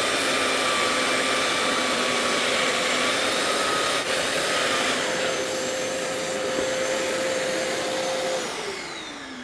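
Electric sander running with a wet/dry vacuum extracting through it, the vacuum switched on automatically by the tool: a steady whirring. About eight seconds in the sander is switched off and its pitch falls as it spins down, while the vacuum runs on under its delayed shut-off.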